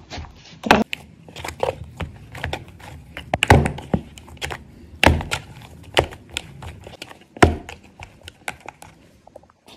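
Roti cane dough being mixed and kneaded by hand in a plastic bowl: scrunching of the crumbly dough with irregular soft thuds, and several louder thumps as it is pressed and pushed against the bowl.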